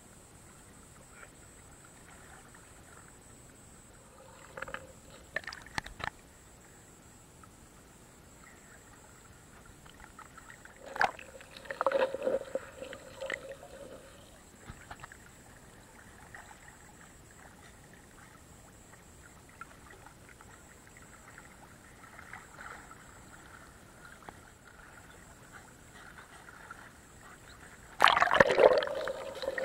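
River water sloshing and gurgling against a camera held at and under the surface, muffled and low for long stretches. There are brief splashes a few seconds in and again about halfway, and a loud splash near the end as the camera breaks the surface beside a swimming dog.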